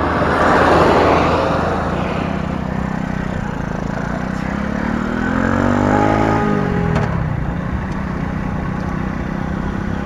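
Small 50 cc RX9 motorcycle engine running as the bike pulls away and rides on. Its pitch climbs over a couple of seconds, then drops sharply about six and a half seconds in. A rush of noise rises and fades in the first two seconds.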